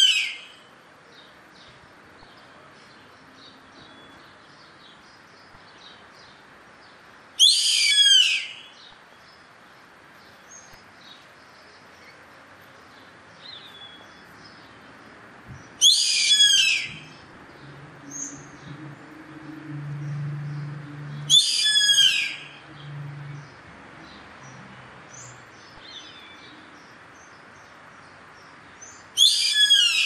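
Yellow-headed caracara calling: four loud, high-pitched calls of about a second each, spaced several seconds apart, with faint chirps of small birds between them. A low hum rises and fades around the middle.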